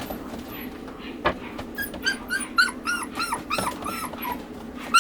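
Shiba Inu whining in a quick run of short, high, rising-and-falling whimpers, about three a second, starting about two seconds in.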